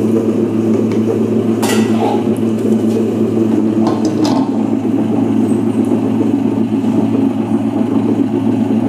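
Preethi Iconic tabletop wet grinder running steadily with its chapati-dough kneading attachment fitted in place of the grinding stones, the drum turning as it kneads the dough. Two brief sharp knocks sound about two and four seconds in.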